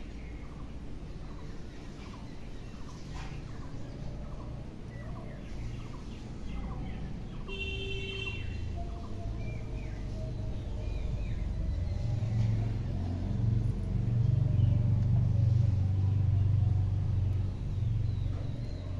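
Low rumble that swells through the second half and is loudest about three-quarters of the way in, with scattered bird chirps throughout and a brief high tone near the middle.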